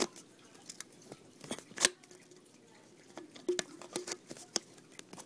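Irregular plastic clicks and taps from handling a toy water gun and its screw-on water tank, with one sharper click a little under two seconds in.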